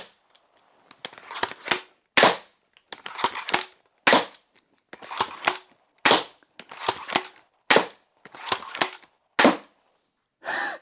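Steambow Stinger M10 repeating crossbow fired in quick succession: six sharp snaps of the string releasing, one every one and a half to two seconds. Between shots there is a short run of clacking as the pump-action is cycled to cock the crossbow and feed the next bolt from the magazine.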